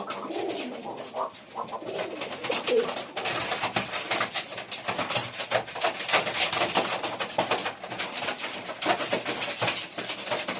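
Pigeons cooing in low, wavering calls. From about three seconds in, a dense scratchy crackle takes over.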